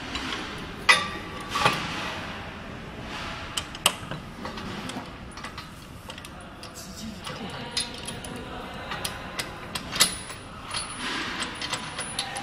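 Scattered clicks and knocks of metal hardware as a bracket is fitted and clamped onto a steel upright, the loudest strikes about a second in and again near the end.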